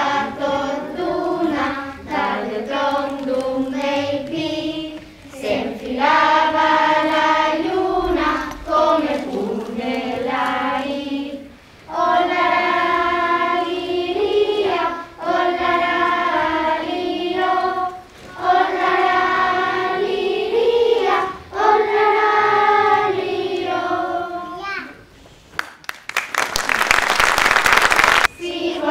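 A children's choir sings a song in phrases a few seconds long, with short breaks between them. Near the end the singing gives way to a loud hiss of about two seconds.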